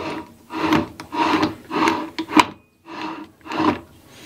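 A four-jaw lathe chuck being spun by hand onto a threaded headstock adapter: a run of about seven short scraping strokes, one per turn, with a sharp click about two and a half seconds in.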